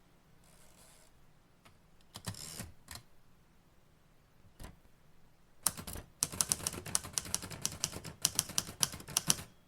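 Typewriter keys clacking: a few scattered keystrokes, then rapid steady typing from about halfway in.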